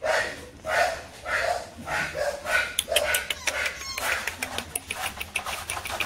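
A dog barking over and over, about two barks a second. From about halfway, a quick run of sharp clicks and taps joins in.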